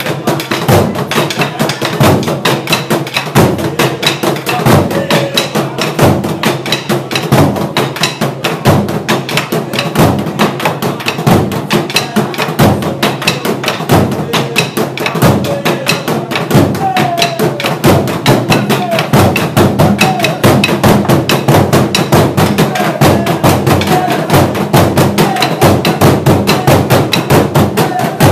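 Burundian drum ensemble: several large wooden drums beaten with sticks in a fast, steady rhythm. Voices call out over the drumming in the second half.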